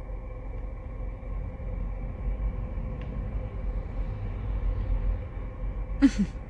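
Steady low rumble of a car heard from inside the cabin, with a faint constant hum over it. A brief voice sound comes near the end.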